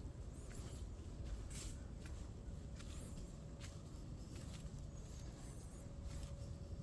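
Barefoot footsteps on a soft dirt forest path, a few irregular soft steps over a low steady rumble, with a few faint high bird chirps.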